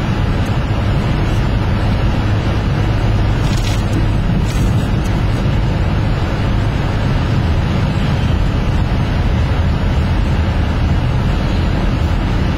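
Steady low engine and road rumble inside a car cabin while driving.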